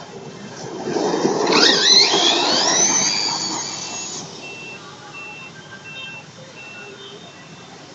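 Nitro engine of a Hobao Hyper SS RC truggy revving hard as it accelerates past, its pitch climbing steeply; loudest about two seconds in, then fading away.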